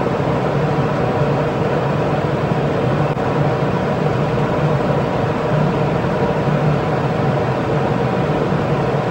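Room ventilation unit running with a steady, even hum that does not change.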